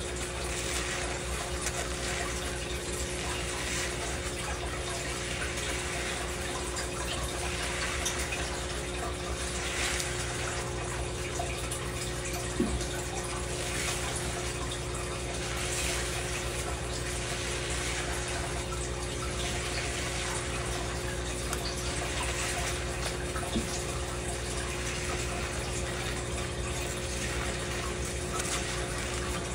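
Steady hiss of water running into a stainless steel sink while lathered hair is scrubbed with a plastic scalp brush, with a faint steady hum beneath. One brief knock about halfway through.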